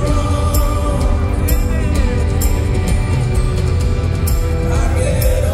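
Rock band playing live through a concert PA, heard from the crowd: drums with cymbal or snare hits about twice a second over heavy bass, with electric and acoustic guitars.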